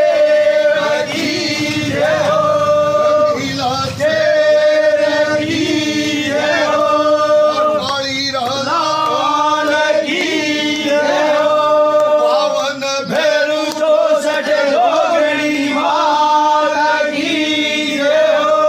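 Rajasthani devotional bhajan to Bheru ji: sung voices holding long notes, each a second or two long, with small wavers between them.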